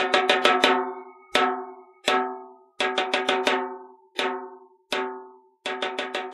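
Soundtrack music on a struck, ringing percussion instrument: quick runs of four or five notes alternate with single notes, each note ringing out and dying away.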